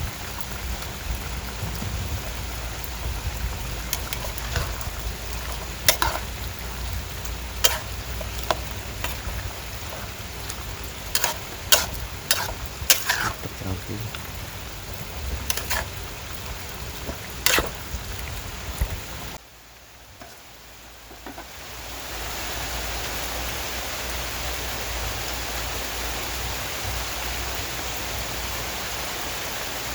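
Steady rain hiss with scattered sharp knocks and clatter through the first two-thirds. After a sudden drop about two-thirds of the way in, an even, unbroken hiss of rain resumes.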